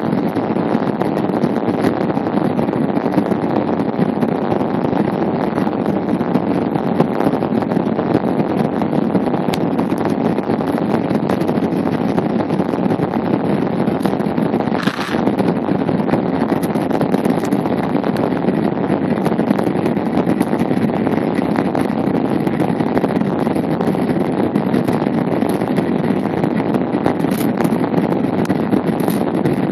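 Steady loud noise inside the cabin of a jet airliner during its takeoff roll, the engines at takeoff power.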